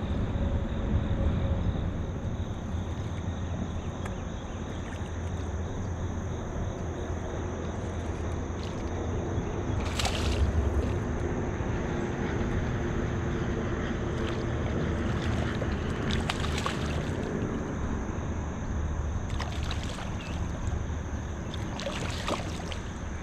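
Steady wind rumbling on the microphone over moving river water, with a few brief knocks scattered through.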